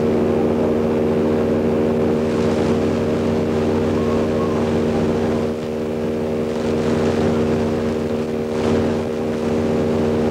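Steady electronic synthesizer drone: a dense hum of many held tones under a hiss.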